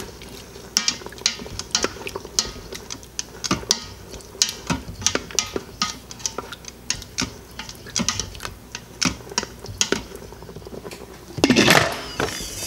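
Irregular clicks and clinks of food and utensils being moved about in a stainless steel Instant Pot inner pot. Near the end comes a louder, longer clatter as the pressure cooker's lid is set on.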